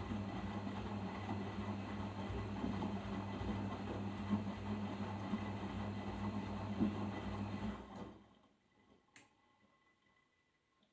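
Arçelik 5083 washing machine tumbling its load in the final rinse: the drum motor hums steadily while water and laundry churn in the drum. About eight seconds in the drum stops for the pause between turns, leaving near silence with a single faint click.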